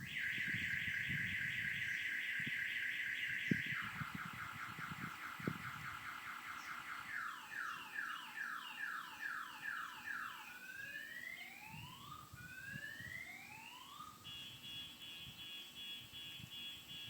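Viper 350 car alarm siren going off, cycling through its tones every three to four seconds: a fast warble, then a rapid chirp, then repeated falling sweeps, then slow rising whoops, and near the end a fast high trill.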